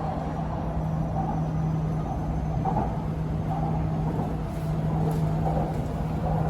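Cabin noise of an MRT Purple Line electric train running between stations: a steady rumble with a constant low hum.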